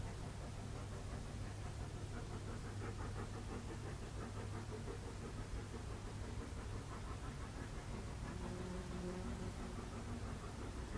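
Distant exhaust beats of the Brienz Rothorn Bahn's steam rack locomotive No. 2 working hard uphill: a rapid, steady chuffing over a low rumble. A short low tone sounds about eight seconds in.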